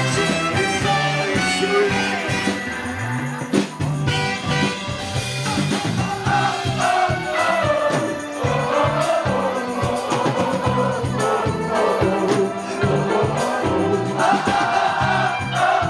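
A live rock band with saxophone and trumpet playing over bass and drums, with several voices singing loudly together; the singing grows stronger about six seconds in.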